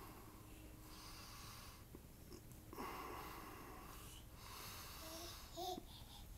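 Baby's excited breathy huffs, several long wheezy breaths in a row, with a short squeaky voice sound near the end.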